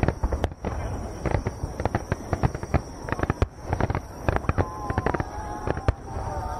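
A barrage of aerial firework shells bursting in quick succession: a dense, irregular run of bangs and crackles.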